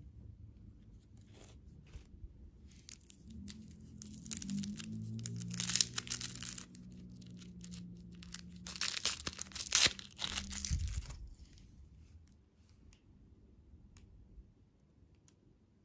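Candy packaging being torn open and crinkled by hand, in two busy stretches of rustling separated by a short pause. The rustling dies away about eleven seconds in.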